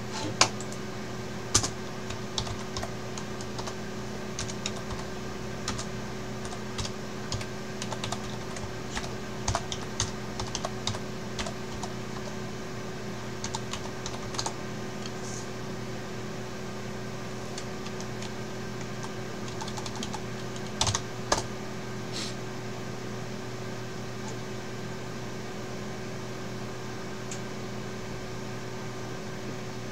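Computer keyboard typing in irregular bursts of keystrokes, denser in the first half and again briefly a little past two-thirds of the way in, over a steady low hum.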